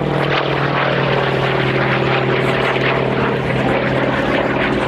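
Hawker Fury FB.II's Bristol Centaurus 18-cylinder sleeve-valve radial engine and propeller running loud and steady in flight, a continuous even drone.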